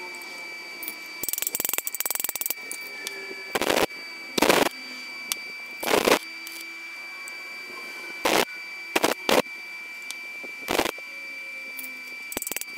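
Metalworking on small iron parts: a series of short, separate rasping strokes, irregularly spaced, with bursts of rapid clicking near the start and again near the end, over a faint steady high whine.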